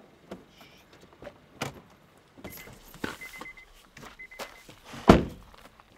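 Car door handling: clicks and rustling while the car's door-open warning chime beeps in short runs, then the door is slammed shut about five seconds in, the loudest sound.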